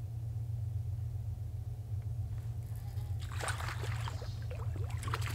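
A small hooked bass splashing and dripping as it is pulled from the water, starting about three seconds in, over a low steady rumble.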